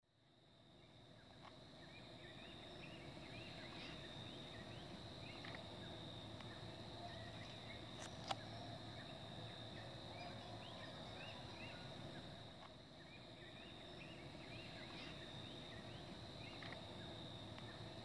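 Rural outdoor morning ambience fading in from silence: a chorus of small animal calls, short chirps repeating over a steady high drone and a continuous low chorus, with one sharp click about eight seconds in.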